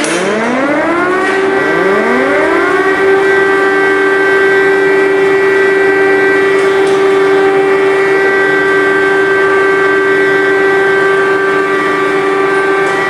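Civil-defence air-raid sirens winding up: a loud wail rises in pitch over about a second, a second siren starts climbing about a second and a half in, and then both hold one steady tone.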